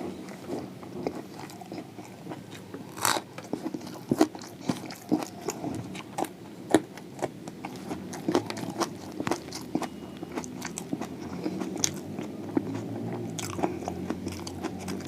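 A person biting and chewing a crispy fried samosa with raw onion and green chili, close to the microphone: chewing with many sharp crunches throughout, one louder crunching bite about three seconds in.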